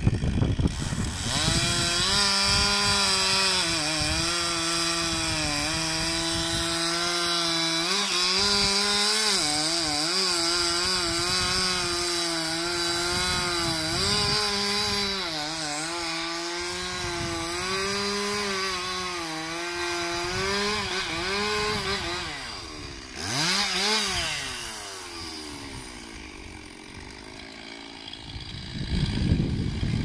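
Stihl MS 362 two-stroke chainsaw at full throttle cutting into a standing conifer trunk, its pitch dipping and recovering as the chain loads up in the wood. About three-quarters of the way through it comes off the cut, revs briefly and drops to a lower, quieter running, and a low rumble comes in near the end.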